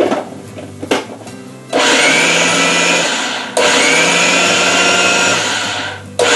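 Food processor motor running in two long runs of about two seconds each, with a brief break between, pureeing jarred roasted red peppers. A click comes about a second in, before the motor starts.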